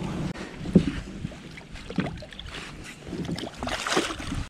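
Choppy water lapping at a small boat with wind on the microphone, a sharp knock a little under a second in. Near the end a hooked fish thrashes and splashes at the surface beside the boat.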